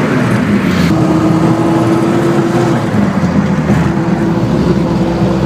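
LuAZ off-road vehicle's engine and drivetrain running as it pulls away, the engine note changing about a second in. There is no knocking from the rear half-shafts: the rear axle is weighed down with a 200 kg load, which cures the knock.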